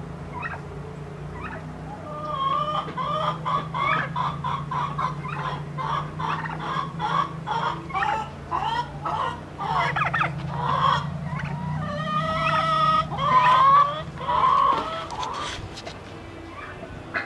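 Domestic chickens clucking and cackling in rapid runs of short calls, with a longer drawn-out call about twelve seconds in and louder calls just after.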